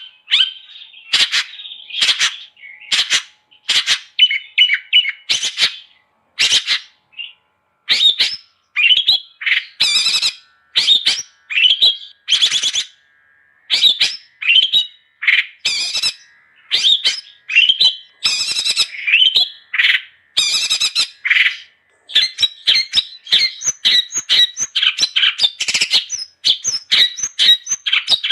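Long-tailed shrike (cendet) singing in full voice: rapid runs of short, harsh chattering and squawking notes in bursts, broken by brief pauses.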